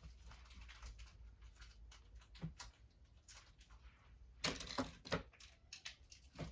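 A pen tip scratching and poking at a sealed plastic jewelry pouch, with faint clicks and crinkling as the pouch is worked open. There is a louder burst of rustling about four and a half seconds in.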